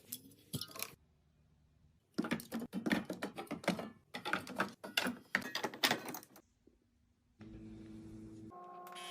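Quick light clicks and taps for several seconds, then, after a short pause, a small motor whirring with a steady tone that shifts higher near the end.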